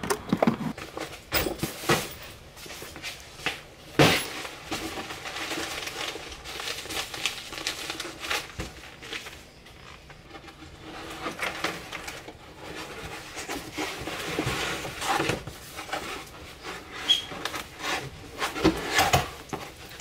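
Irregular clunks, knocks and rustling from hands working at a car battery terminal and clearing items and cloth out of a car trunk, with a sharp knock about four seconds in the loudest.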